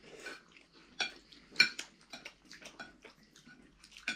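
Cutlery clinking and scraping on breakfast plates during eating: a run of small clicks, with two sharper knocks about a second and a second and a half in.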